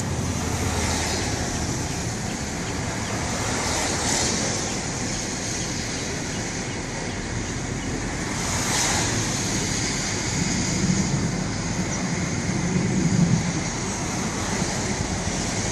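Floodwater rushing and flowing, a steady wash of noise, with wind gusting on the microphone.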